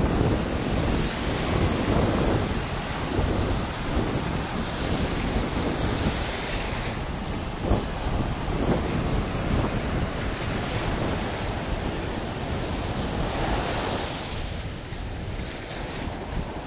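Ocean surf breaking and washing over the shallows in a steady rush of water, with wind buffeting the phone's microphone.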